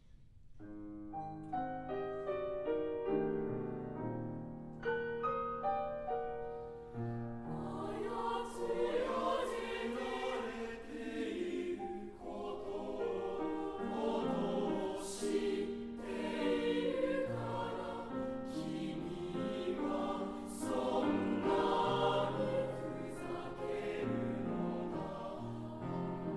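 Junior high school choir singing with piano accompaniment. The piano plays alone at first, and the voices come in about seven seconds in.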